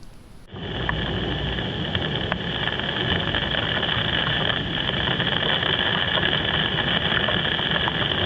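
Heavy rain pouring down: a loud, steady hiss with scattered drop ticks, starting abruptly about half a second in.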